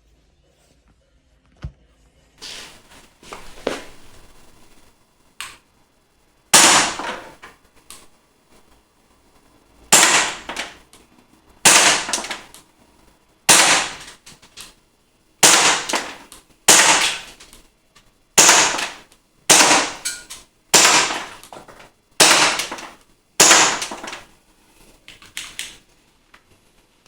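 Action Army AAP01 gas blowback airsoft pistol firing single shots, about a dozen sharp cracks one to two seconds apart. Quieter clicks and knocks come before the first shot.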